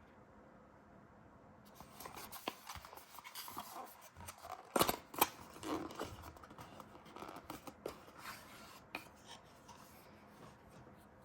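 Packaging being opened and handled by hand: rustling, scraping and scissor-like snips, with two sharp clicks about five seconds in.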